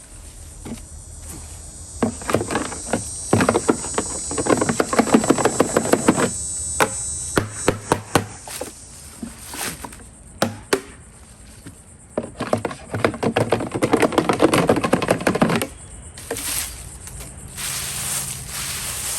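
SunJoe electric wood chipper-shredder chewing through sticks: two long bursts of rapid cracking and snapping, a few seconds each, over the running motor.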